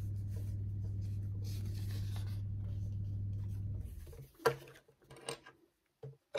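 Paper instruction booklet rustling as its pages are turned, over a steady low hum that stops about four seconds in. Then a few short clicks and taps as small plastic LEGO bricks are picked up and handled.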